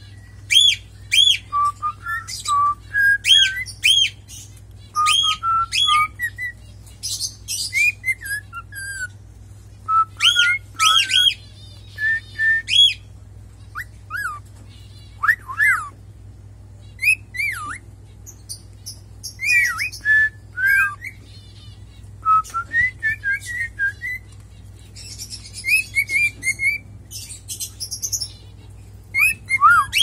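Cockatiel whistling a song: runs of clear whistled notes and rising and falling glides, in phrases repeated with short pauses.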